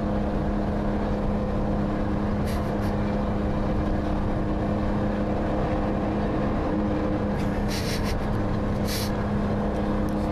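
Detroit Diesel 12V71 two-stroke V12 in a loaded 1975 Peterbilt, straight-piped through dual 6-inch stacks, droning at a steady pitch on part throttle after the driver backs off. It is heard from inside a following car's cabin over road noise.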